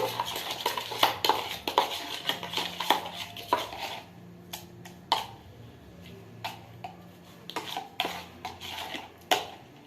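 A spoon clinking and scraping against a bowl while stirring slime as it thickens with added salt, quick and dense for the first few seconds, then slowing to scattered taps.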